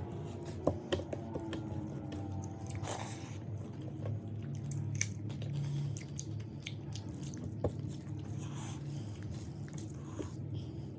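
A person chewing a meal of boiled fish and bamboo shoots, with scattered sharp clicks of eating, over a steady low hum.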